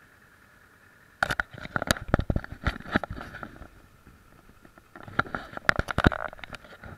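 Handling noise from an SJ4000 action camera being moved and readjusted on its mount: clusters of clicks, knocks and rubbing against the camera body, starting about a second in and again about five seconds in.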